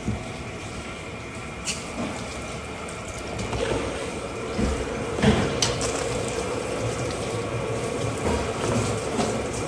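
Water running steadily, as from a tap or hose, with a few sharp knocks and clatters.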